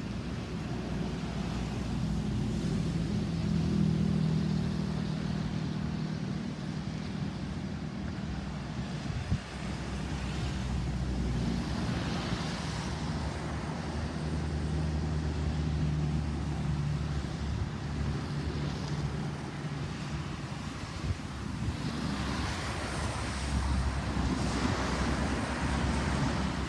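Motor vehicle engine noise with a low hum that swells and fades several times, like traffic passing, over steady wind noise on the microphone.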